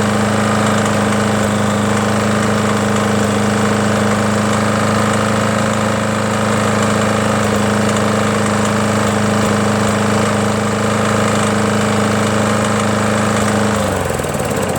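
Rotary lawn mower's small engine running steadily at speed, then shut off near the end, its pitch falling as it winds down. The owner still feels it clanks and suspects something rubbing at the flywheel.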